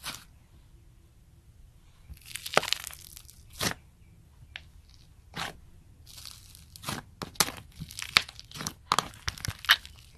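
Slime being squeezed and stretched by hand, giving irregular crackles and sharp pops that come thicker and faster in the second half.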